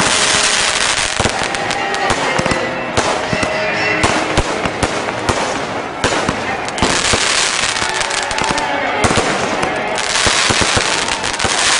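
Fireworks and firecrackers going off in rapid, irregular cracks, with stretches of hissing, over music and voices.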